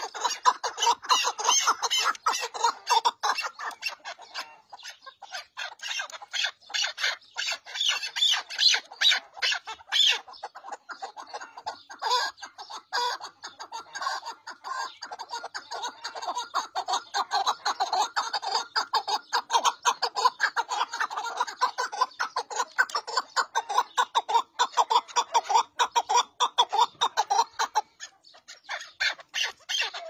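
Chukar partridge calling: a long, rapid run of harsh clucking notes, several a second, that thins out briefly about ten seconds in and again near the end.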